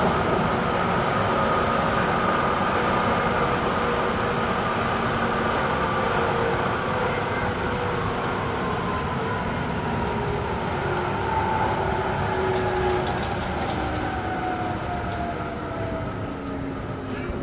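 DUEWAG B80D light-rail car running on the line, heard from inside: steady rolling noise with a drive whine that falls slowly in pitch as the car slows.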